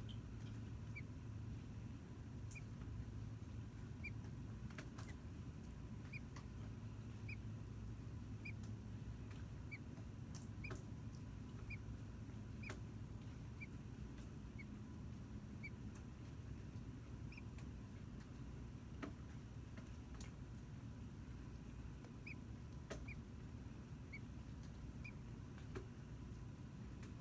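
Faint short high chirps, repeated about once or twice a second at uneven intervals, over a steady low hum.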